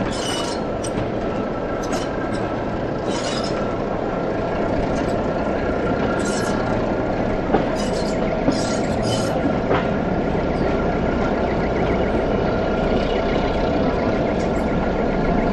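Small diesel shunting locomotive running as it pulls a passenger coach slowly along curved track, its engine note steady under the rumble of wheels on rail. It is broken by a few short high squeals and two sharp clanks about halfway through.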